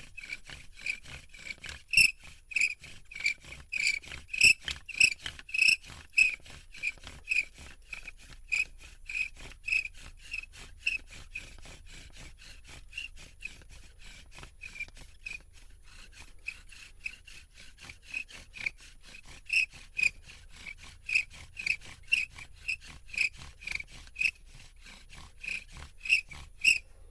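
Hazel bow drill in use: the spindle, spun by the bow, rubs in the hearth board and gives a high squeak on every stroke, about two to three a second. It runs softer for a few seconds in the middle, then gets strong again near the end.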